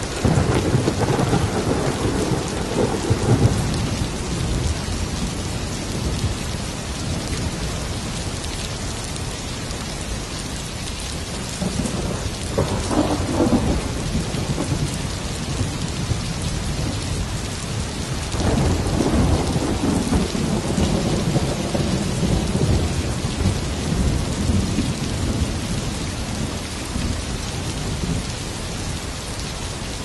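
Steady rain with thunder rumbling three times: a sudden rumble right at the start, a shorter one about twelve seconds in, and a long rolling one from about eighteen seconds in that slowly fades.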